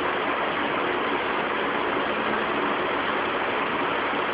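Steady, even background hiss with no change through the whole stretch.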